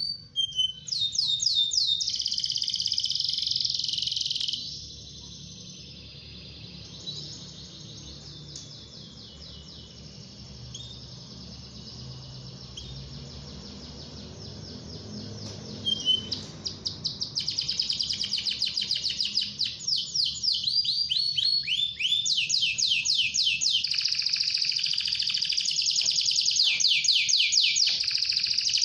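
Canary singing a long, vigorous song of fast trills and rolls made of rapidly repeated sweeping notes. It is loud for the first few seconds, softer from about five seconds in, and loud and unbroken again from about sixteen seconds in.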